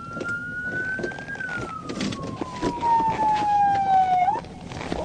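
Police car siren wailing: a slow rise in pitch, a long fall, then a swing back up near the end.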